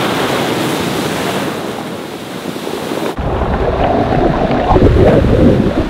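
Surf breaking and washing over a pebble shore, a steady hiss of foam and water. About three seconds in, the sound changes to water sloshing and splashing right against a surfboard-mounted camera at water level, with a heavy low rumble of water and wind buffeting the microphone.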